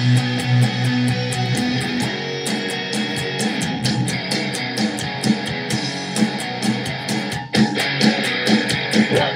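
Electric guitar strummed along to a rock recording with drums, a fast even cymbal beat running through it. There is a brief break about seven and a half seconds in.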